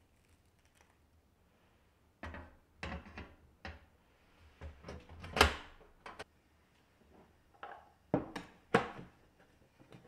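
A string of short knocks and clacks as a white enamel saucepan is handled and set down on the grate of a portable gas stove, the loudest knock about five and a half seconds in.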